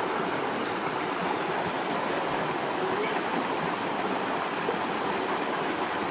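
Steady rush of flowing water at a rock pool.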